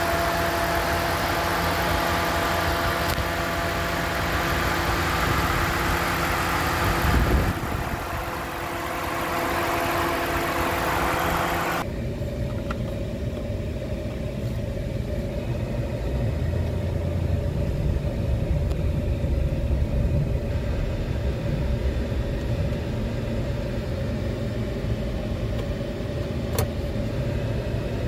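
Dodge Ram 2500 pickup's engine idling steadily. It is first heard close up under the open hood, with a steady whine over the running. About twelve seconds in it changes abruptly to a duller, muffled low rumble heard from inside the cab. A single click comes near the end.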